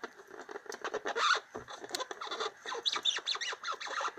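Rapid run of short, chirping squeaks from a Hyundai's rear suspension strut, where a non-standard aftermarket dust boot with bump stop rubs as the suspension moves. It is the rear-end creak that appears when the back of the car is loaded with passengers.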